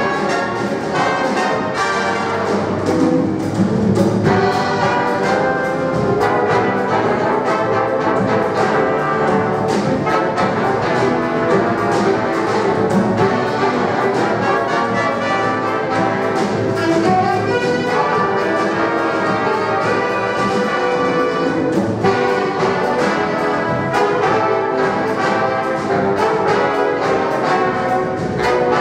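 Big band playing jazz, with the brass to the fore over saxophones, piano, electric guitar, upright bass and a drum kit keeping a steady beat.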